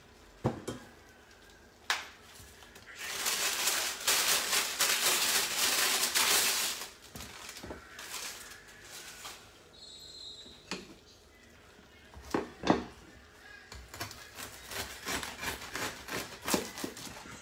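A bread knife sawing through a crusty loaf on a wooden board, quick scratchy strokes near the end. Earlier there are a few knocks and a loud noisy stretch of about four seconds.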